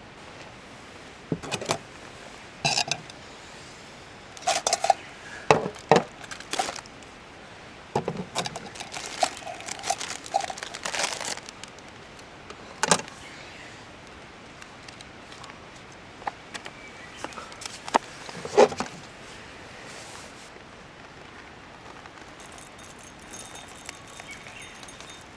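Irregular clinks and clatter of small hard objects, likely metal, being handled, in scattered bursts over the first two-thirds, then a quieter stretch with only faint ticks.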